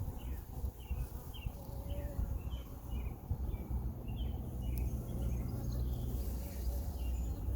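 Honeybees humming around an open hive over a low outdoor rumble. In the first half a small bird gives short high chirps about twice a second.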